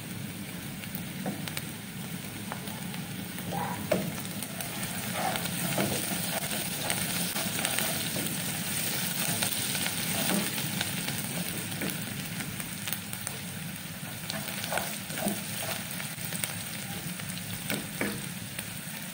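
Sliced red onions sizzling steadily as they fry in vegetable oil in an aluminium pot, while a wooden spatula stirs them with short scrapes against the pot now and then.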